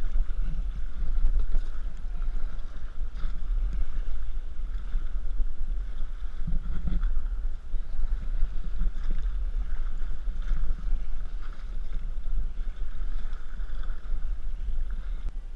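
Wind buffeting the microphone over the steady rush and lap of river current against an inflatable raft.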